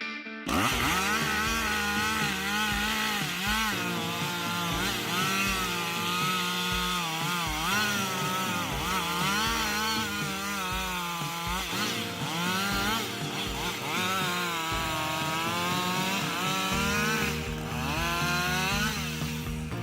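Two-stroke chainsaw cutting wood, its engine note rising and falling over and over as the throttle is worked and the chain bites. It starts about half a second in.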